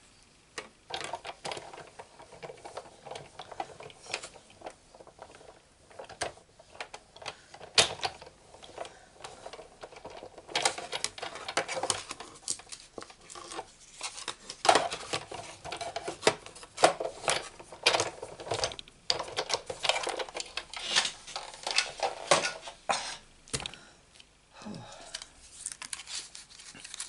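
Irregular clicks and clatters of hard plastic being handled: the cutting plates of a Big Shot die-cutting machine being taken off its platform and set aside. The clicks are sparse at first and come thick and fast from about ten seconds in.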